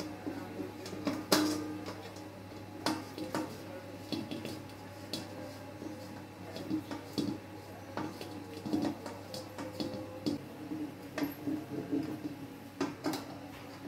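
Metal screwdriver clinking and scraping inside an enamel wok as the screw of its loose handle is tightened, in irregular sharp clicks.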